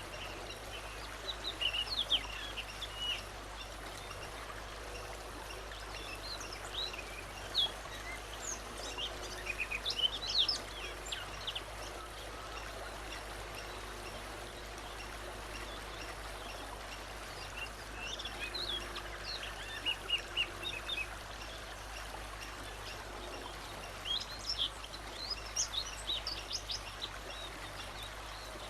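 Wild forest songbirds singing in four separate bouts of quick, high chirps and whistles over a steady background hiss.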